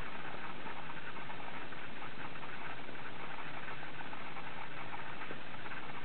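Steady noise of a blizzard: wind with a fine, even crackle running through it.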